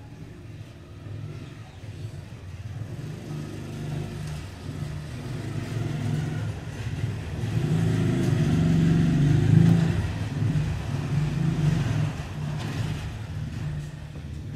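A motor vehicle's engine, growing louder to a peak about nine seconds in and then fading as the vehicle passes.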